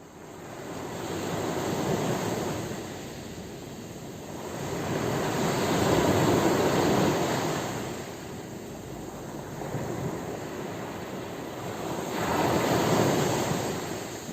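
Sea waves washing onto the shore, fading up at the start and then swelling and ebbing three times, each surge a few seconds long.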